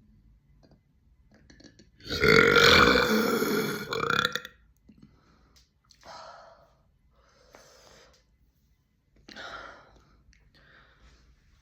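A person's long, loud, deep burp lasting about two and a half seconds, starting about two seconds in. A few short, much quieter sounds follow.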